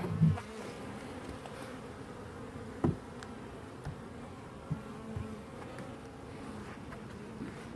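Honeybee colony buzzing in an open hive, a steady hum, with a few light knocks about three and five seconds in.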